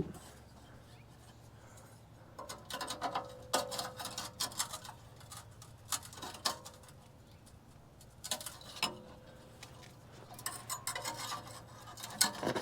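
Scattered light clicks, taps and scrapes of hand tools working on metal at a car's rusted exhaust pipe joint, coming in short busy spells with pauses between.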